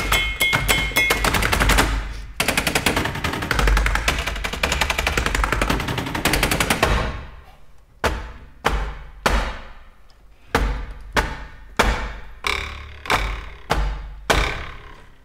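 Laptop keyboards typed fast by several players as percussion, a dense clatter of key clicks that breaks off about seven seconds in. After that come single sharp knocks, evenly spaced at about one and a half a second, each ringing briefly.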